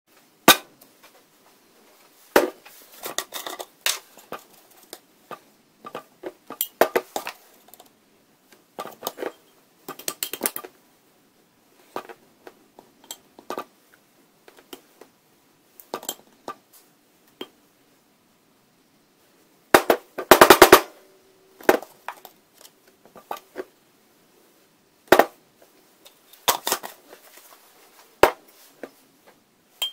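Kitchen handling sounds of a glass measuring jug and a plastic flour jar being picked up, set down and knocked: scattered clicks and taps, with a quick run of rapid knocks about two-thirds of the way through.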